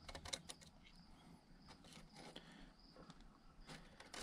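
Near silence with faint, light clicks and taps of small steel parts being handled in a stainless wire-mesh basket, most of them in the first second. A faint steady high thin tone runs underneath.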